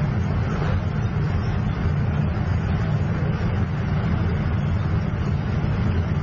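Steady low engine rumble of armoured vehicles on the move, with no separate shots or blasts standing out.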